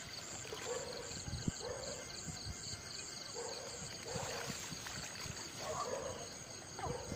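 Night insect chorus of crickets: a steady high, evenly pulsing chirring, with scattered faint low calls and a few soft knocks.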